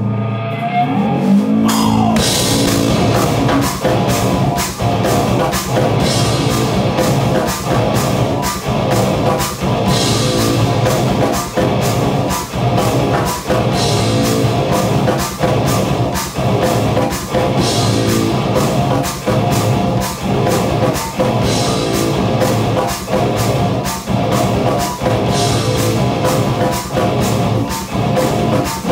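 Rock band practising an instrumental: electric guitar, bass guitar and drum kit. A guitar plays alone with a sliding note for the first couple of seconds, then the drums and full band come in and play a fast, driving, evenly pulsing rhythm.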